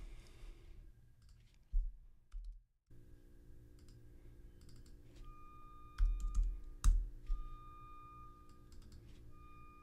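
Scattered keystrokes and clicks on a computer keyboard, typing numbers into a field: a few taps about two seconds in and a loudest cluster of knocks and a sharp click around seven seconds in. A faint steady hum lies underneath.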